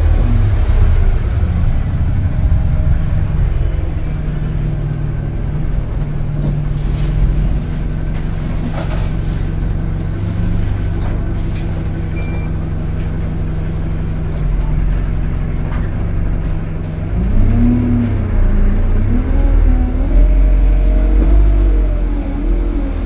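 Single-deck diesel bus heard from inside the saloon, its engine running steadily at low revs with a few light rattles. About two-thirds of the way in, the engine note rises and wavers as the bus picks up revs.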